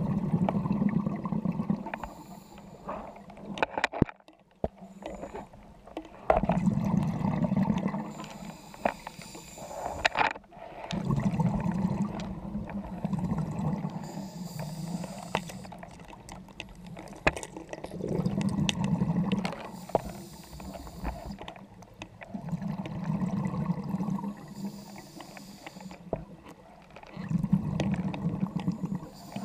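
Scuba diver breathing through a regulator underwater: six loud bubbling bursts of exhaled air about every four to five seconds, with a fainter hiss from the regulator between them.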